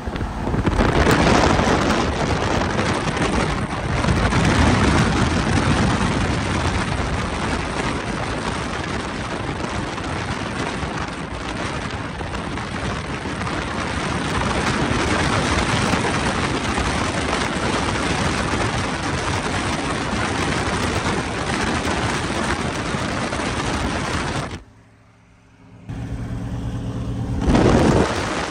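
A twin-turbo Ford Mustang and a BMW M3 Competition racing side by side at freeway speed, their engines under heavy wind and road noise from a car keeping pace. The sound swells a couple of times early, then drops out for about a second near the end.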